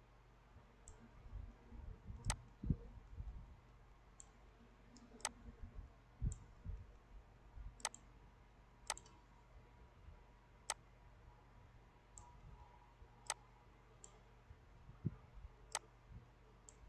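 Computer mouse buttons clicking: single sharp clicks every second or two, some fainter, with a few soft low thumps between them.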